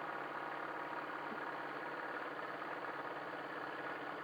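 Wilesco D21 toy steam engine running steadily under load from a fan, with a fast even rhythm, over the steady hiss of its gas burner.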